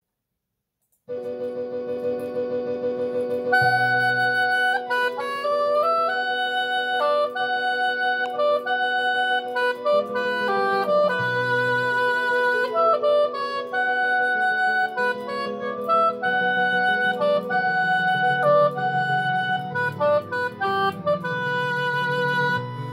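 A Miraphone oboe, a German professional instrument, playing a slow melody that starts about a second in with a long held note and then moves through sustained phrases, over a lower accompaniment. Its tone is sweet and dark.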